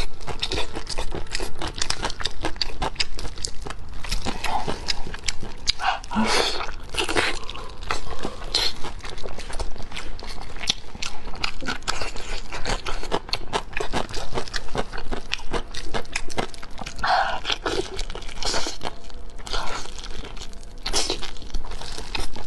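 Close-miked eating of braised pig's trotters: a steady run of wet chewing, biting and mouth clicks, with a few louder bites about a third of the way in and again near the end.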